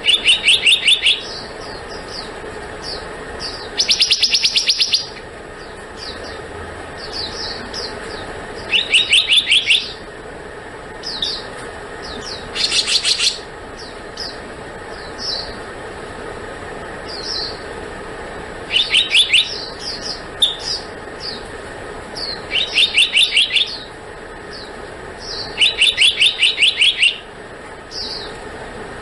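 Black-naped monarch calling: repeated quick trains of sharp, high, evenly spaced notes, each about a second long and coming every few seconds, with short single notes in between.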